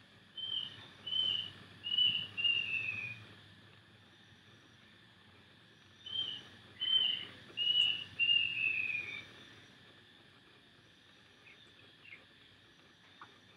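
A bird calling twice, each call a phrase of four short high whistled notes ending in a longer note that slides down in pitch.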